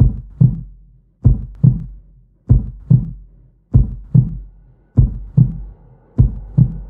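Heartbeat sound effect: slow, loud lub-dub double thumps, about one beat every one and a quarter seconds. A faint steady hum comes in about five seconds in.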